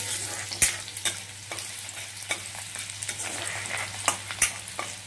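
Chopped garlic sizzling in hot oil in a kadai, with a metal spoon scraping and knocking against the pan several times as it is stirred.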